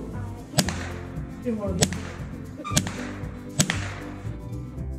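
Four shotgun shots about a second apart, each a sharp crack that dies away quickly, over background music.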